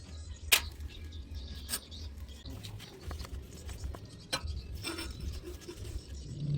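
A few separate sharp clicks and light scraping over a steady low rumble, the loudest click about half a second in.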